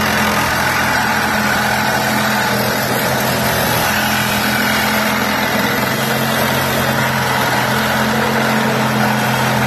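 Milwaukee M18 Fuel Sawzall cordless reciprocating saw with a carbide-toothed Torch blade cutting through thick black steel pipe. The saw runs steadily under load, with the blade cutting through the metal.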